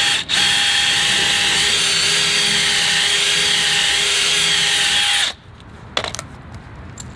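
Cordless DeWalt drill running steadily under load, boring a bolt hole through a rubber snow deflector into a snow plow blade. The drill stops suddenly about five seconds in, followed by a single click.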